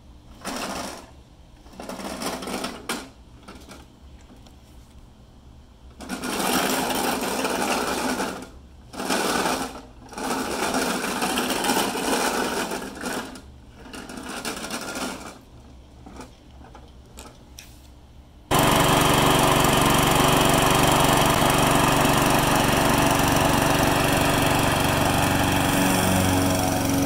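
A remote-controlled walk-behind mower drives across brick pavers in short bursts, its electric wheel-drive motors whirring and the deck rattling. About two-thirds of the way through, the mower's petrol engine cuts in loud and running steadily.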